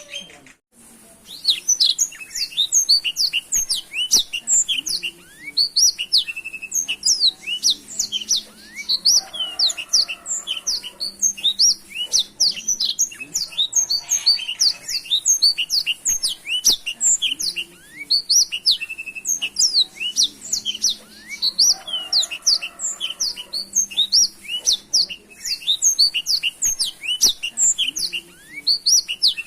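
Black-throated canary (blackthroat) singing a long, fast, unbroken run of high chirps and trills, the lively full song kept as a training recording for other songbirds. The song breaks off briefly about half a second in, then resumes.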